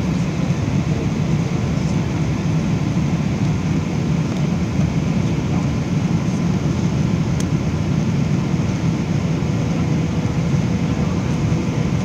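Steady cabin roar inside a Boeing 777-300ER on final approach: its GE90-115B engines and the airflow over the extended flaps, heard from a window seat over the wing.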